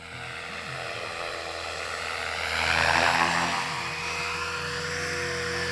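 Align T-Rex 500 radio-controlled model helicopter flying, its rotor and motor whine growing louder to a peak about three seconds in, the pitch shifting up and down as it moves, then holding steady.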